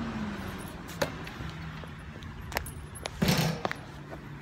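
A basketball bouncing on an outdoor court: sharp single thuds about a second and a half apart, then a louder, longer burst of noise a little after three seconds in.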